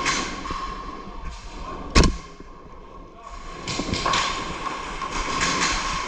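Breathing through a gas mask, long hissing breaths drawn through the filter, with a single sharp crack about two seconds in.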